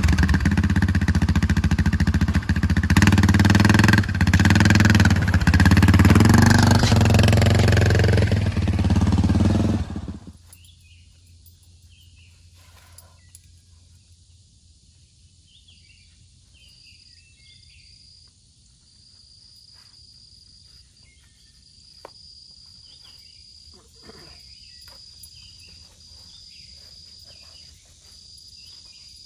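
ATV engine running for about the first ten seconds, its pitch shifting a little near the end, then cut off abruptly. After that come insects buzzing in a steady, high, on-and-off drone, with scattered bird chirps and a few faint clicks.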